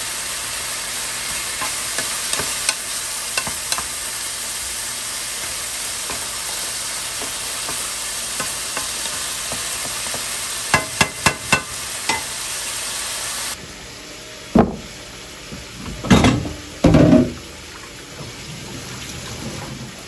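Chicken pieces sizzling as they sauté with garlic and onion in a hot pan, stirred with a wooden spoon, with a quick run of spoon knocks against the pan about eleven seconds in. After a cut, the sizzle gives way to a quieter background with a few loud knocks and handling sounds at the kitchen sink.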